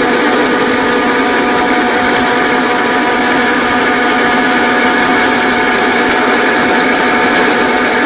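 Small wheat flour milling machine running steadily: an even, loud mechanical grinding noise with a constant hum and whine running through it.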